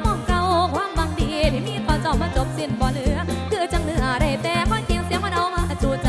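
A woman singing a Thai song live into a handheld microphone, her melody wavering and gliding with vibrato, backed by a live band with steady bass and drum kit.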